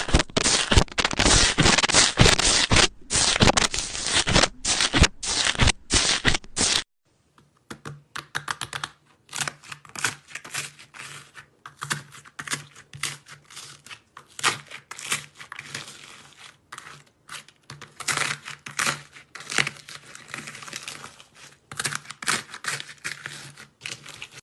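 Slime being handled and squeezed: dense crackling and popping clicks. About seven seconds in, it changes abruptly to a quieter run of clicks and pops over a faint low hum.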